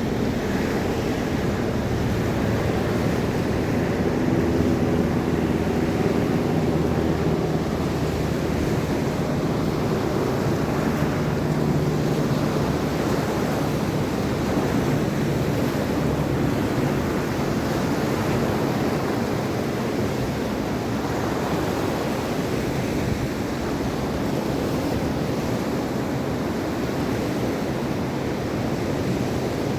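Mediterranean Sea waves washing onto the shore in a steady, continuous rush. A faint low hum lies under it in the first half.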